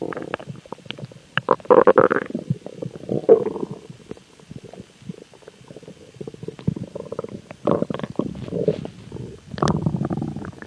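A stomach growling: irregular gurgling rumbles with many small clicks, coming in several louder bouts, the loudest about two seconds in and another near the end.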